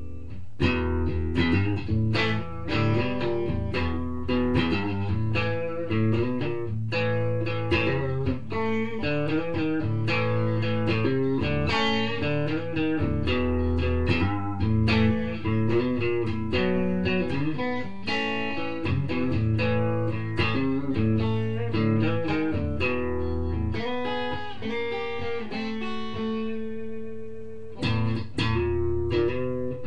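Guitar music: a guitar played in quick successions of plucked notes, with a few notes left ringing between runs.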